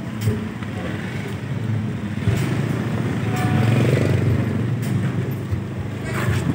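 Motorbike engines running as several motorcycles ride past close by, getting louder about two seconds in, over a steady low hum.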